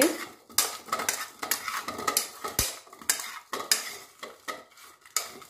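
Steel spoon stirring peeled taro root pieces in a ceramic bowl, with repeated irregular clinks and scrapes of the spoon against the bowl.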